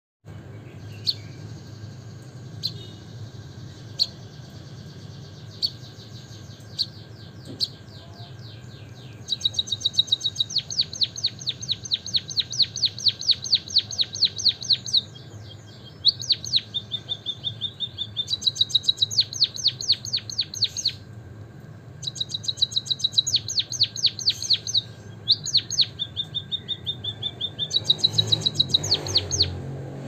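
White-headed munia singing. A few sharp, separate chirps come first. From about nine seconds in it breaks into long canary-like rolling trills of fast, high repeated notes in runs of several seconds with short pauses.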